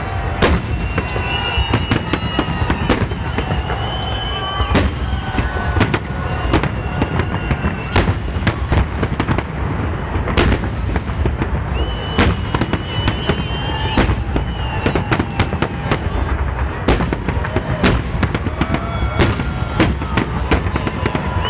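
Holiday fireworks salute: shells bursting in a dense, continuous string of sharp bangs, several a second, over a steady rumble.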